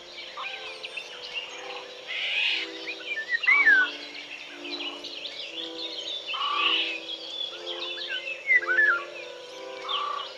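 Several birds chirping and singing in short whistled slurs, over background music of slow, even, held low notes.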